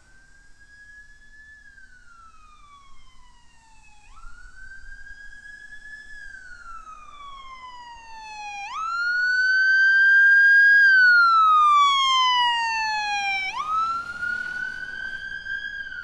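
Fire-rescue SUV's siren sounding a slow wail: each cycle jumps up in pitch, holds briefly, then falls slowly, repeating about every four to five seconds. It grows much louder about nine seconds in as the vehicle drives up and passes.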